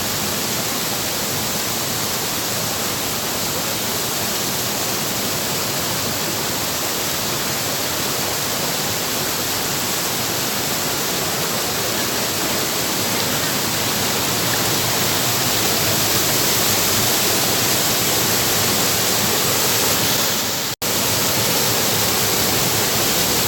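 Waterfall roaring steadily, loud enough to drown out voices, with a brief dropout near the end.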